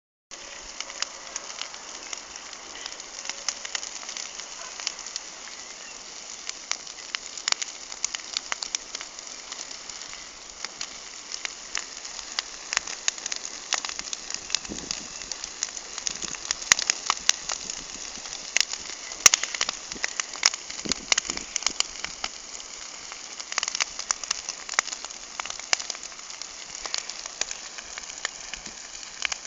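Wood campfire burning, crackling with many irregular sharp pops and snaps over a steady hiss.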